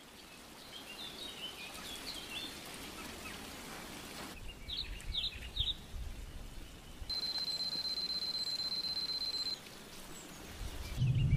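Outdoor nature ambience of bird chirps over a soft wash of noise, in segments that change abruptly. A steady high-pitched tone holds for about two and a half seconds past the middle, and near the end a low rising swell begins.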